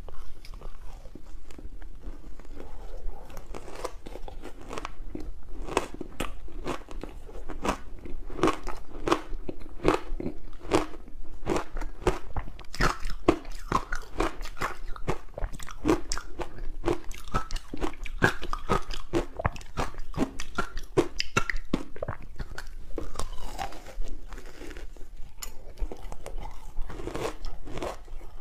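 Close-miked biting and chewing of soft ice balls coated in green barley powder: a dense run of quick crunches, several a second, as the frozen ice breaks between the teeth.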